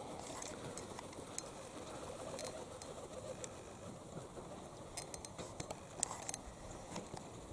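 Domestic pigeons cooing faintly, a low wavering murmur, with a few scattered soft clicks.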